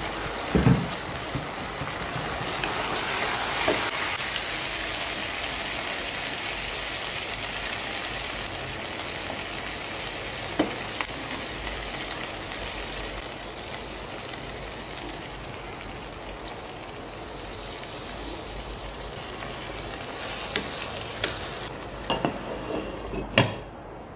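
A pot of curry sizzling steadily while it is stirred with a metal spoon, with a few sharp clicks of the spoon against the pot. Near the end several knocks as the glass lid is set back on the pot.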